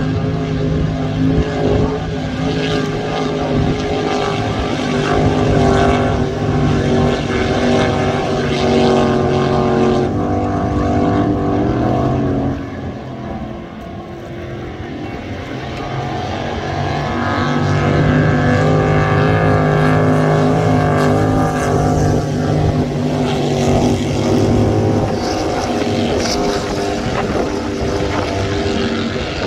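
Racing powerboat engines running hard at speed, a loud steady drone of several tones. It fades from about twelve seconds in as the boats draw far off and swells again from about seventeen seconds as they come nearer.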